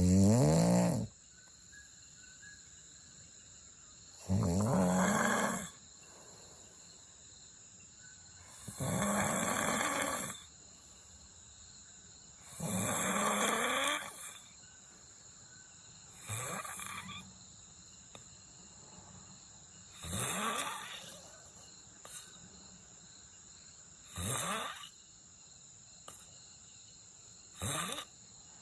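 A person snoring in their sleep: eight snores, one about every four seconds, each lasting a second or so, the later ones shorter and fainter. A steady high-pitched tone runs behind them.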